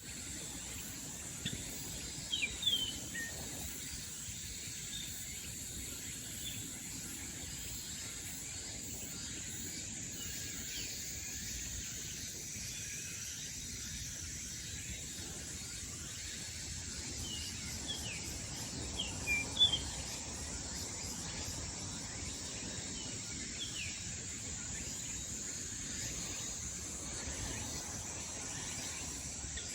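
Summer-morning forest ambience: a steady high-pitched insect drone, with wild birds giving short, quick falling chirps in a few clusters, near the start and again past the middle, the loudest around two-thirds through.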